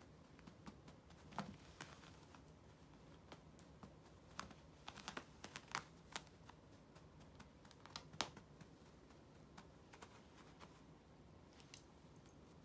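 Near-quiet room with scattered soft clicks and rustles, bunched about the middle: a feather wand cat toy flicking against the carpet as the cats swat at it.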